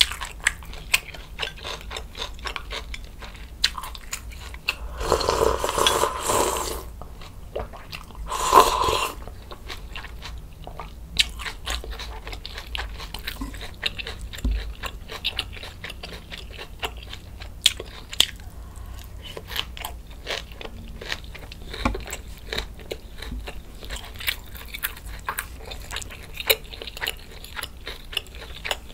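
Close-miked chewing and crunching of fresh napa cabbage kimchi (geotjeori) with boiled pork slices: a steady run of small crisp clicks. Two louder, longer noisy stretches come about five and eight seconds in.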